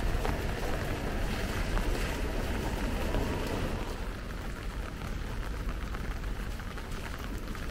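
Rain ambience with traffic on wet roads: a steady low rumble and a hiss of tyres on wet pavement, easing a little after about four seconds.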